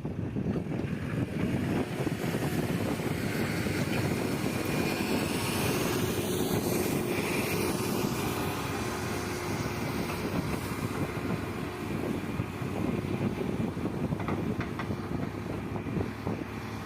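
Backhoe loader's diesel engine running steadily while the machine works.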